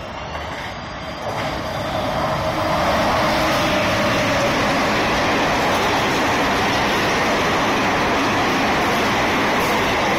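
Express train with a WAP-7 electric locomotive passing through a station at speed: the sound grows louder over the first three seconds as the locomotive arrives, then becomes a steady rush and rumble of coaches rolling by on the rails.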